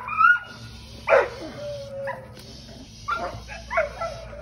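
Young American Pit Bull Terrier barking in four or so sharp barks, with short whines between them. It is the sound of an aroused, excited dog lunging on a tether at a bite pillow.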